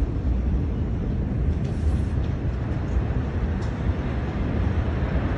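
A low, steady rumbling roar, heaviest in the bass, picked up by a phone microphone in the aftermath of a massive explosion, with a couple of faint ticks about two seconds in and again later. No single blast is heard.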